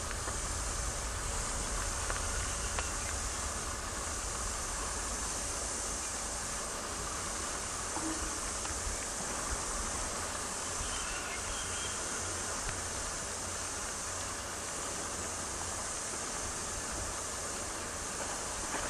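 Wind buffeting the camcorder microphone with an uneven low rumble, over a steady high-pitched hiss.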